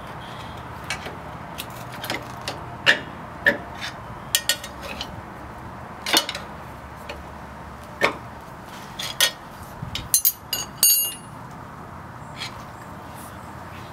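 Hand tools clinking and tapping on a Jeep Wrangler JK's lower shock mount as a TeraFlex shock is worked into a bracket it won't fully seat in: irregular sharp metal clicks, with a short cluster of ringing clinks about ten to eleven seconds in.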